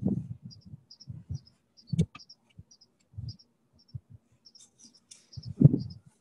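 Shovels scraping into a mound of loose soil and earth thudding down into an open grave, loudest right at the start, about two seconds in and near the end, with smaller scrapes and rustles between. A small bird chirps over it in a quick, regular series.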